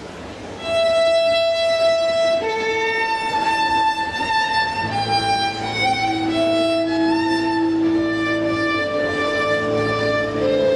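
Instrumental music: a melody of long held notes begins about a second in, and a lower sustained part joins it about five seconds in.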